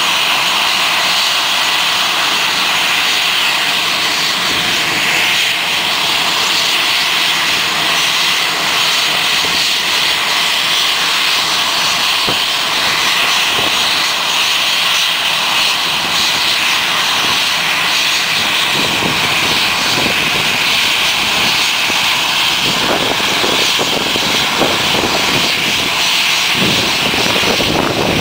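Twin turbofan engines of an Airbus A320-family airliner running at takeoff power as it rolls down the runway: a loud, steady jet engine noise with a strong high hiss. About two-thirds of the way through, a deeper, uneven rumble joins in.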